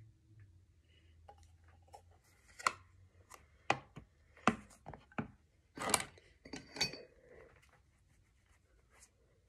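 Plastic makeup containers and a compact being handled on a table: a string of sharp clicks and taps over a few seconds, the loudest and longest about halfway through.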